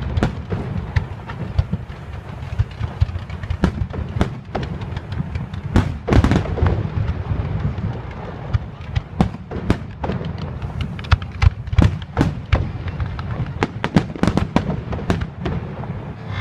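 Fireworks going off: a dense, irregular run of sharp bangs and cracks over a continuous low rumble.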